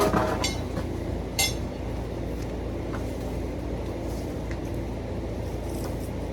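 A steady low mechanical hum, with two sharp metallic clinks near the start.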